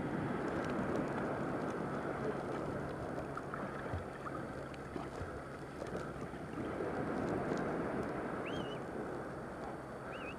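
Sea surf and water noise with wind buffeting the microphone, rising and falling in surges over a faint steady low hum. Two short high chirps sound near the end.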